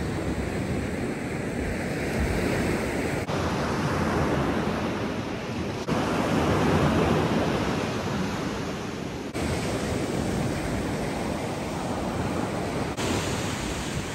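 Waves breaking and washing up on the shore: a steady rush of surf that swells about halfway through.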